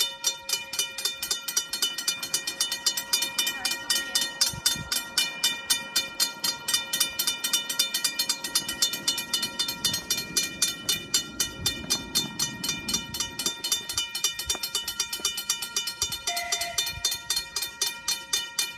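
Level crossing warning bell ringing rapidly and steadily, with evenly spaced strokes, while the crossing signal shows 'TRAIN COMING'. A low train rumble builds under the bell in the middle and fades again.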